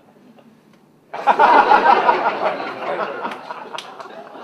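Audience bursts into laughter about a second in, loud at first and then dying down.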